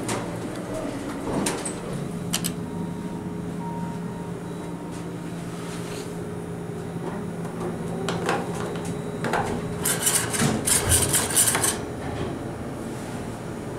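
Hydraulic elevator cab with a steady low hum, then a burst of rattling clicks from about ten to twelve seconds in as the doors close.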